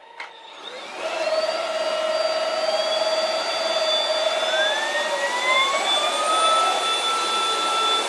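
Two cordless stick vacuum cleaners, a Dibea F20 Max and a Prosenic P8 Max, start at maximum power. Their motor whine with its airflow hiss builds over the first second, and two of its tones climb in pitch a few seconds in as the motors spin up, then hold steady.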